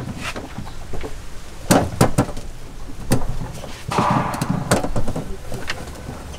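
Round eggplants being handled on a wooden table: several separate knocks as they are picked up and set down against the boards and each other, with a brief rustle in the middle.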